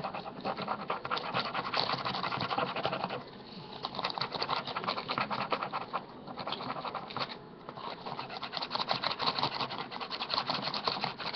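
Thin clear plastic bag crinkling and rustling as hands squeeze and knead it, with a mix of shampoo and green Jello inside. The crackle goes on almost without a break, easing off briefly three times.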